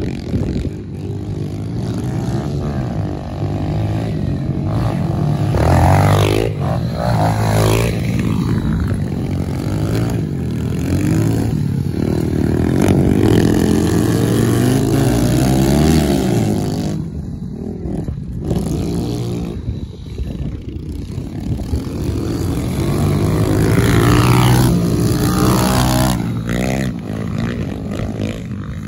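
Pit bikes racing, at least one a Kawasaki KLX110 with its small air-cooled single-cylinder four-stroke engine. The engines rev up and down with throttle and gear changes, growing louder several times as the bikes pass close.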